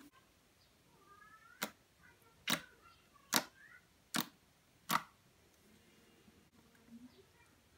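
Fingertips poking into soft, thick slime, giving five sharp pops about one every 0.8 seconds as air pockets burst.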